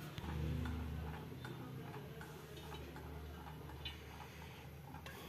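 Faint, regular ticking about twice a second over a low steady hum, with a sharp click at the very start.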